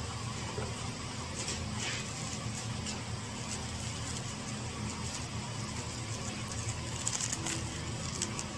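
A steady low mechanical hum, with a few light clicks and rustles scattered over it.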